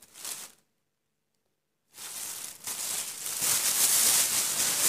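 Thin clear plastic produce bag crinkling and rustling as hands work in it among okra pods, starting about two seconds in and growing louder.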